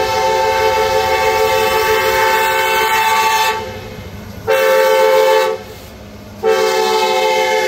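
Norfolk Southern diesel locomotive's multi-tone air horn sounding the grade-crossing signal: a long blast that ends about three and a half seconds in, a short blast a second later, then the final long blast starting near the end. A low rumble from the train runs underneath.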